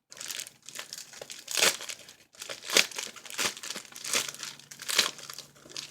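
A mailer package crinkling and crumpling in irregular bursts as it is handled and pulled open.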